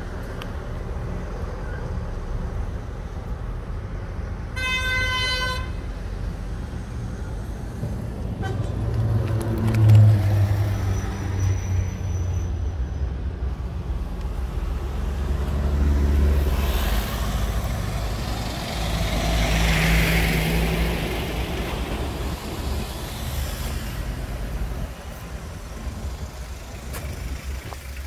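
Truck engine running with a low, steady rumble. A short vehicle horn toot sounds about five seconds in, and a vehicle passes, swelling and fading, a little past the middle.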